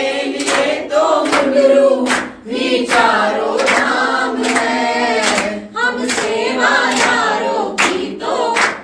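A chorus of voices singing a Hindu devotional song (bhajan) over a steady held drone, with regular rhythmic clapping or percussion strikes.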